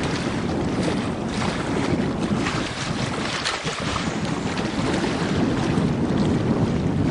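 Wind buffeting the microphone: a steady, loud rushing noise with brief crackling gusts.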